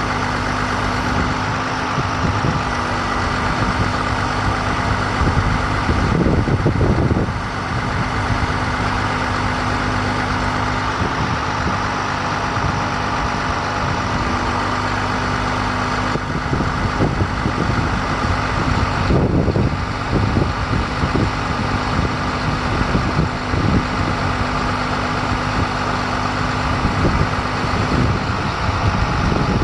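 International 4300 bucket truck's diesel engine running steadily at idle, with a steady hum over it, swelling slightly a couple of times.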